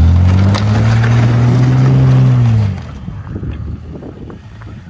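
Jeep engine revving hard while stuck in snow: the revs shoot up, are held high for about two and a half seconds, then drop off, leaving wind noise on the microphone.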